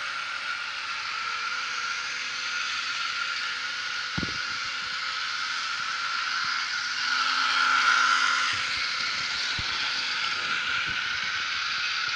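Model locomotive of the SNCF CC 40101 running on test with its small electric motor whining steadily, the whine swelling about seven to eight seconds in. A single knock about four seconds in and a few light clicks later on.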